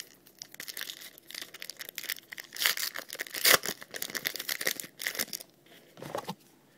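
A foil trading-card pack wrapper being torn open and crinkled by hand, with irregular crackling rustles that die down after about five seconds, then one short rustle.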